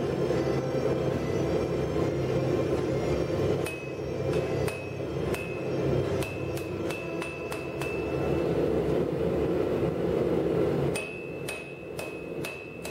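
Hand hammer striking a red-hot steel bar on an anvil while forging a post vise spring: blows come about two a second starting a few seconds in, each followed by a short ringing note from the anvil, and come faster near the end after a brief pause. A steady rushing noise runs under the first part and stops about eleven seconds in.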